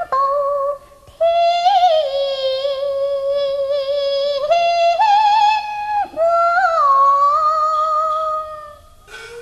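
A Cantonese opera singer's high voice drawing out a long melismatic phrase: held notes that slide from pitch to pitch, with a short break about a second in and a fade near the end.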